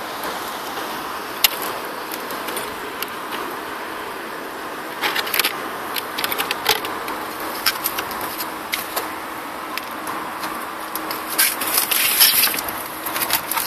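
Scattered clicks and light rattles of an HSP Brontosaurus RC monster truck's plastic body shell and wire body clips being handled as the shell is taken off, with a denser burst of cardboard box handling near the end, over a steady background hum of traffic.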